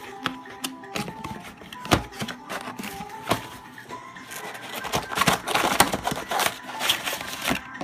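Cardboard packaging being handled: sharp taps and clicks, then a stretch of sliding and scraping about five to seven seconds in as the inner box is slid out of its sleeve, with background music playing.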